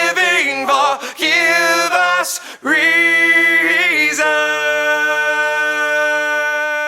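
Song vocals: short sung phrases, then a long held sung note from about three seconds in, wavering at first and then steady.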